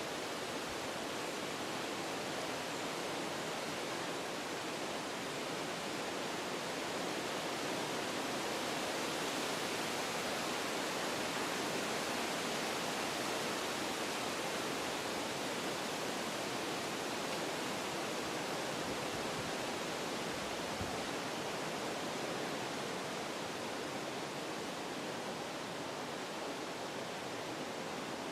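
Wind blowing through forest trees, a steady rushing that swells a little in the middle.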